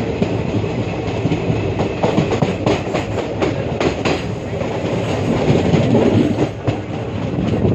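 Indian Railways passenger coach running along the track, heard from its open doorway: a steady rumble of wheels on rails, with a run of sharp clickety-clack from the wheels crossing track joints about two and a half to four seconds in.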